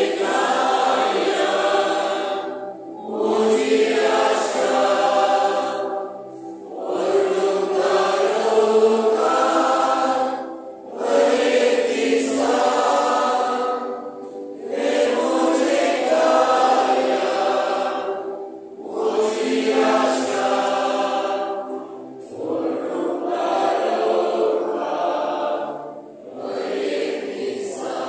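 A choir singing a hymn, in phrases of about three seconds each separated by short breaks.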